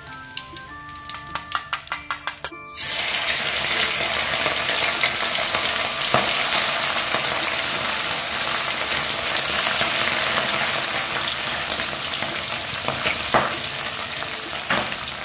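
Music with a quick run of clicks, then about three seconds in a loud sizzle starts suddenly as smoked fish goes into hot oil in a wok, and it keeps deep-frying steadily.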